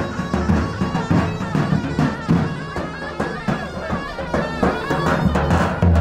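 Davul and zurna playing a halay dance tune: a shrill, reedy zurna melody that bends and wavers over a steady beat of deep davul strokes.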